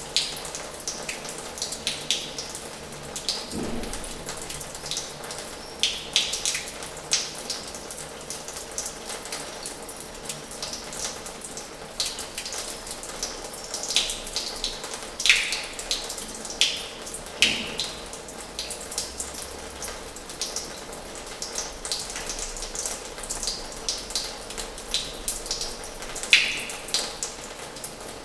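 Water flowing from the tap of an old washhouse basin: a steady splashing stream with many irregular, sharp drips and splashes on top.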